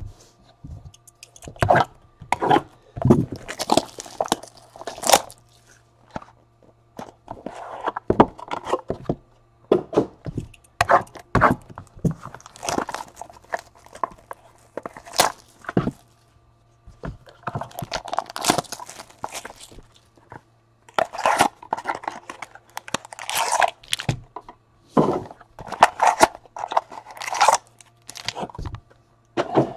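Cardboard trading-card boxes being torn open by hand, with sharp rips and crunches, and foil-wrapped card packs crinkling as they are pulled out, in irregular bursts over a faint steady low hum.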